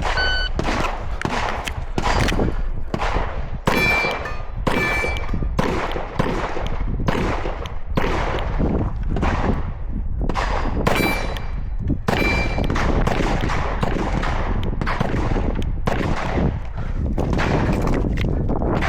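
A shot-timer start beep, then a rapid string of pistol shots as a USPSA stage is shot, with steel targets ringing when hit several times along the way.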